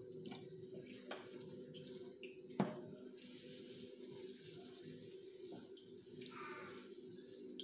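Egg frying in oil in a pan with a steady sizzle, while a wooden spatula scrapes and taps against the pan, one sharper knock about two and a half seconds in.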